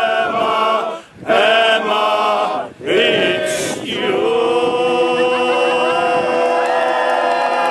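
Male chorus singing a cappella in harmony: two short phrases broken by brief pauses, then a long held chord from about four seconds in.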